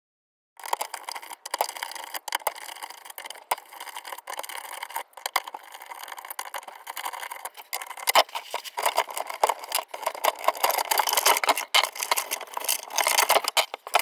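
Gloved hands working the heavy cables and terminals of an RV transfer switch in a metal compartment: continuous rattling, scraping and clicking of wires and metal parts, starting about half a second in.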